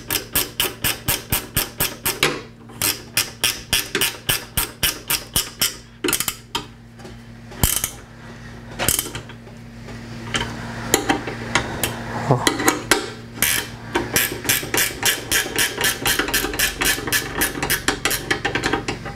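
Hand ratchet wrench clicking in quick runs of about five clicks a second, with short pauses between runs, as bolts are turned by hand.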